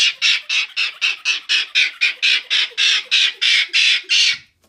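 A monkey shrieking in a fast, regular run of harsh, hissing squeals, about four or five a second, that breaks off abruptly shortly before the end.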